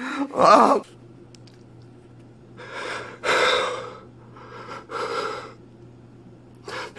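A man groaning briefly, then two heavy, breathy gasps or sighs about three and five seconds in.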